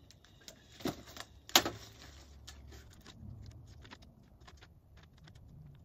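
Tree-stand straps with metal buckles jangling and clinking as they are handled: two sharp clacks about one and one and a half seconds in, the second the loudest, then a run of small clicks and rustles.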